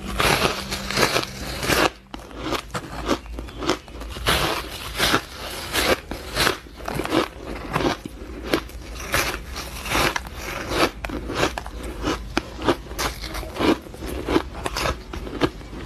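A person biting into a slab of frozen ice and chewing it, picked up close by a lapel microphone. A loud, dense crunch of bites in the first two seconds gives way to a steady run of quick, sharp crunches as the ice is chewed.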